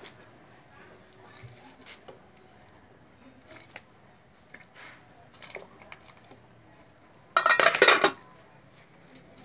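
Metal lid clattering onto a metal cooking pot as it is put on, a loud rattle of metal-on-metal lasting about a second near the end, after a few small knocks at the pot. A steady high insect trill runs underneath.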